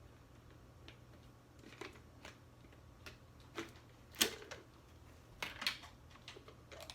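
Irregular light clicks and taps, a dozen or so spread unevenly, the loudest about four seconds in.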